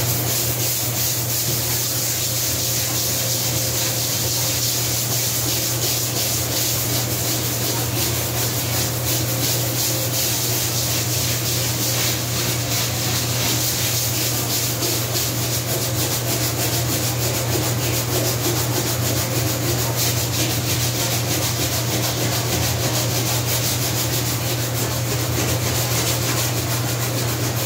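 Scrubbing a vinyl kitchen floor by hand: a continuous run of quick rubbing strokes over a steady low hum.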